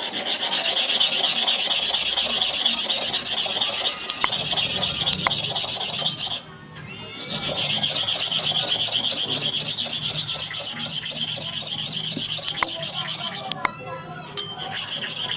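Hair clipper blade rubbed rapidly back and forth by hand on an abrasive sharpening surface, a continuous scraping rasp as the blade face is ground to a shine. The rubbing stops briefly about six seconds in and again near the end.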